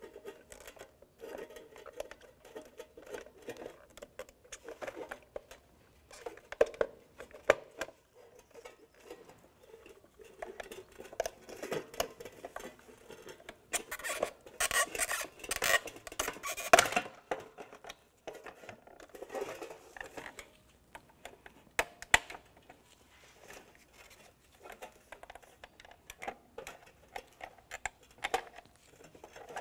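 Plastic clips on a Honda Civic fuel pump module housing being pried apart with a metal pick: scattered small clicks and scrapes, with a busier stretch of scraping and clicking about halfway through and a few sharp snaps as clips let go.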